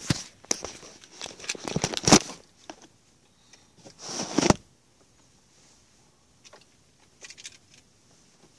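Handling noise from a phone rubbing and knocking against clothing as it is moved and laid on a leather car seat: a quick run of knocks and rubbing over the first two seconds, a longer rustle about four seconds in, then only a few faint taps.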